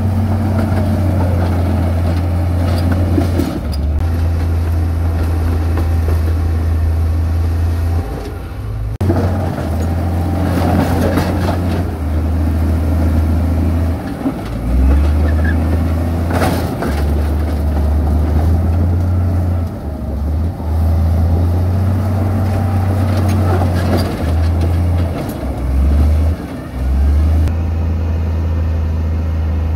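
Heavy construction machinery running: a loud, low diesel engine drone that shifts in pitch and load many times, with mechanical noise over it.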